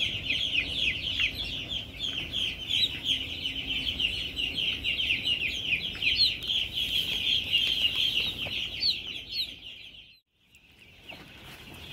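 A large flock of young chicks peeping all together, a dense, continuous chatter of short, high, falling cheeps. About ten seconds in it cuts out suddenly for a moment, then returns fainter.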